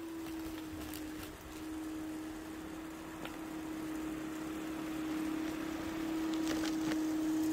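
Snow Joe Ultra SJ618E 13-amp corded electric snow thrower running while clearing snow, its motor a steady whine on one even tone that dips briefly about a second in.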